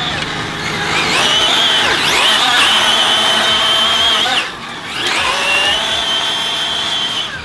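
Arrma Felony 6S BLX's brushless motor and drivetrain whining as the 1/7-scale RC car accelerates flat out, the pitch climbing quickly and then holding high at speed. The whine breaks off about four and a half seconds in, then climbs and holds again.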